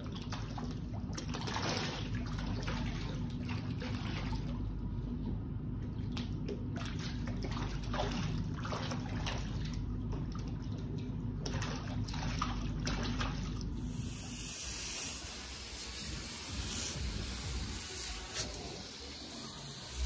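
Sea water sloshing and trickling against the hull over a steady low mechanical hum. About two-thirds of the way through, the hum drops away and a steady hiss takes over.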